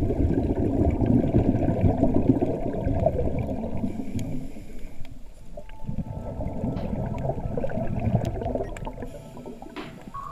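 Scuba regulator exhaust bubbles heard underwater through the camera's housing: a muffled bubbling rush in two long exhalations, with a short lull about halfway.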